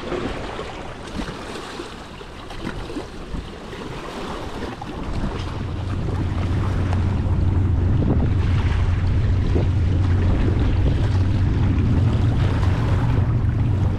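Wind buffeting the microphone, getting louder about five seconds in and then holding as a steady low rumble, over small waves lapping and splashing against shoreline rocks.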